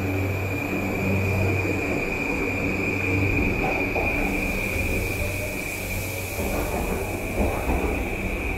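Train pulling out of the station after its doors close: rumbling running noise with a steady high-pitched whine, the low hum giving way to heavier rumble about halfway through.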